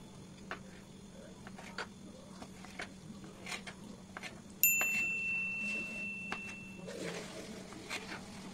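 A knife cutting boiled gizzards and liver on a wooden table, with light, irregular taps of the blade on the wood. About halfway through, a single bright metallic ding rings out for about two seconds; it is the loudest sound.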